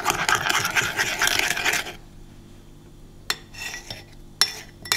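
A utensil stirring and scraping a mayonnaise-based dressing around a bowl for about two seconds, then a few light clinks.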